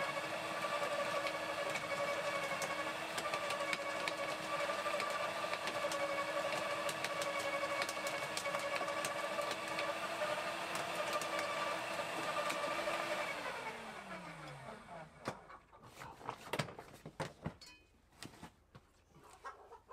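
Electric garden shredder running steadily under load as branches are fed in. About 13 seconds in it is switched off and its hum falls in pitch as the motor runs down, followed by a few scattered knocks and clicks of handling.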